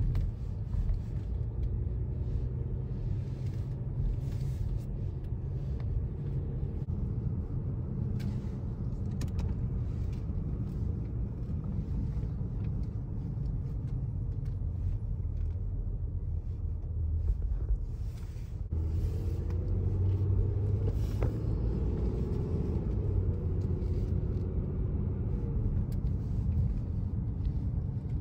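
Car driving, heard from inside the cabin: a steady low rumble of engine and tyres. About two-thirds of the way through it grows a little louder, with a faint wavering tone over it.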